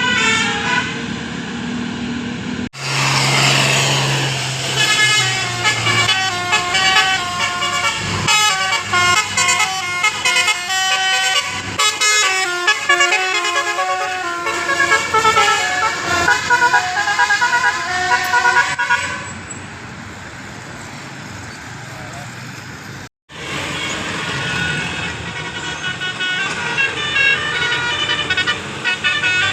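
Basuri musical horns on tour buses playing telolet tunes: quick runs of changing notes, several tones at once. The horns ease off for a few seconds before another tune starts, and the sound cuts out suddenly twice.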